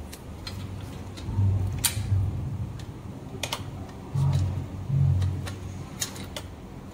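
Small clicks and light knocks of a screw and metal rear-rack parts being handled and fitted on an e-bike frame, scattered irregularly, with a few dull low thumps.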